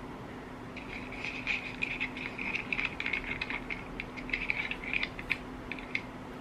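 Irregular crackling, rustling and clicking of a camera being handled and adjusted up close, starting about a second in and stopping near the end, over a faint steady hum.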